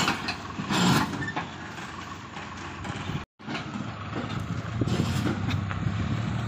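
Farm tractors pulling trolleys loaded high with sugarcane going past, engines running and trolleys rattling, growing louder in the second half, with a brief break in the sound about halfway through.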